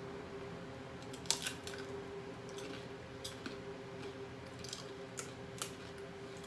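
People biting and chewing a crunchy Paqui spicy tortilla chip: irregular sharp crunches, the loudest about a second in.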